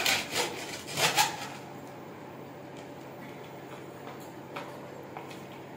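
A few brief knocks and rustles in the first second and a half, then a hushed room: faint steady room noise with a few soft clicks.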